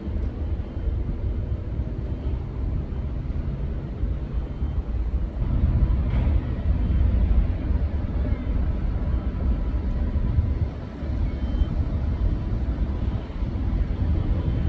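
Steady low rumble of road vehicles in city traffic, swelling and easing slightly, with no single sharp event standing out.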